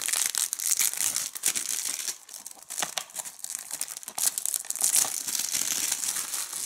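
Clear plastic shrink-wrap being torn open and peeled off a DVD case, crinkling continuously with sharp crackles.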